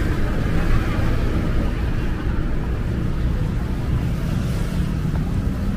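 Steady street noise: a low traffic rumble with wind buffeting the microphone.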